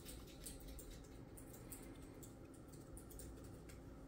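Near silence: room tone with a faint low hum and scattered faint clicks.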